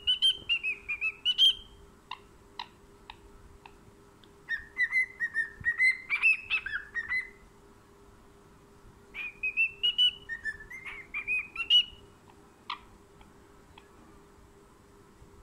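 A whistled tune in three short phrases a few seconds apart, gliding up and down in pitch, with a few short chirps between the phrases.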